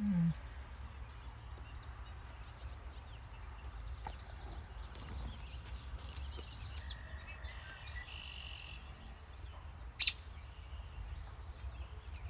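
Outdoor ambience: a steady low rumble with a few faint bird chirps. There is a sharp click about ten seconds in.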